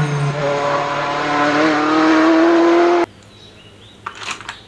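Racing car engine sound effect. A revving note drops in pitch, then holds and creeps back up, and cuts off suddenly about three seconds in. A few faint clicks follow.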